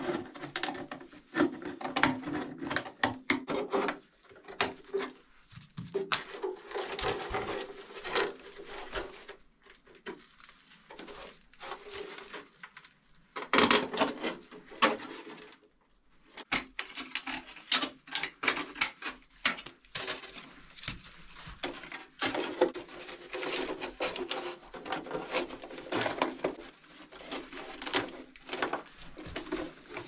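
Scraping and clinking of a rusty sheet-metal pipe as it is handled and worked with pliers and a hand tool, with straw rustling underneath. Irregular clicks and knocks go on throughout, with a few brief pauses.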